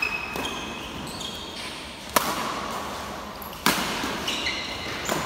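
Badminton rackets striking a shuttlecock in a rally: four sharp smacks about a second and a half apart, the second the loudest, with short sneaker squeaks on the court floor between the hits.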